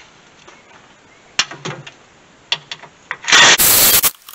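Scattered clicks and knocks of hand tools on the truck's radiator support while 10 mm bolts are taken out, then a loud rushing burst of noise, under a second long, about three seconds in.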